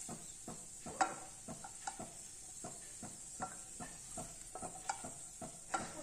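Hot ghee crackling with frequent small, irregular pops while fried cashews and raisins are scooped out of the pan with a silicone spatula, over a faint steady sizzle.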